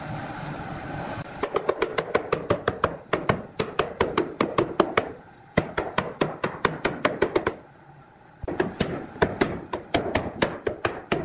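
A hand-held wooden block rapping quickly on the edge of a wooden stool's seat top, about five or six sharp knocks a second, knocking the top down onto the glued frame. The knocking runs in bursts and breaks off briefly about two-thirds of the way through.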